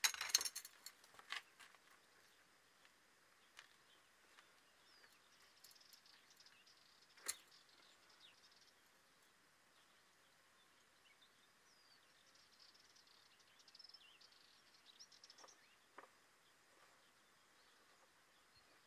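Near silence with faint bird chirps now and then, and a few sharp clicks and knocks: a cluster in the first second and a half, one about seven seconds in, and two small ones near sixteen seconds.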